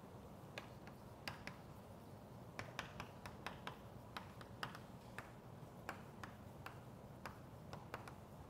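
Chalk writing on a chalkboard: irregular sharp taps and short strokes as letters are written, starting about half a second in and coming in quick clusters.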